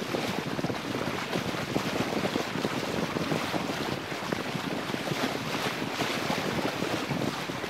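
Wind buffeting the microphone in uneven gusts over the steady rush of water along the hull of a Lancer 25 sailboat under sail.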